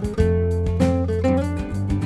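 Background music: an acoustic guitar-led track with a steady beat.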